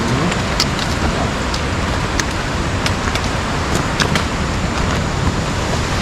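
Steady rushing of flowing mountain water, a stream or waterfall, with scattered sharp clicks over it.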